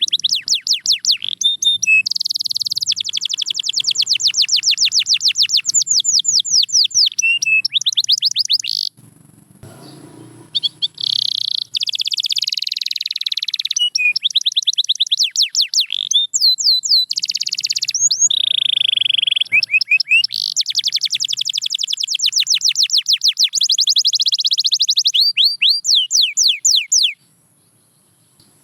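Domestic canary singing in long rapid trills of repeated high notes, pausing briefly about nine seconds in and stopping shortly before the end.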